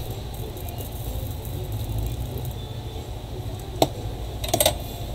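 Steady low hum with a sharp click a little under four seconds in and a quick cluster of small clicks half a second later, as soldering iron tips lift a shorted surface-mount part off a laptop motherboard.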